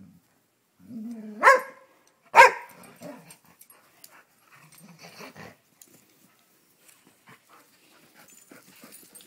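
Dogs play-fighting: a low growl rises into a sharp bark about a second and a half in, a second, louder bark follows a second later, then quieter growls.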